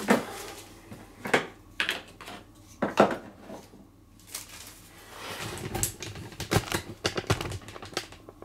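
Hard plastic clicks and knocks from parts of an opened Kärcher pressure washer being handled and set down: a few sharp taps in the first three seconds, then a quick run of clicks near the end.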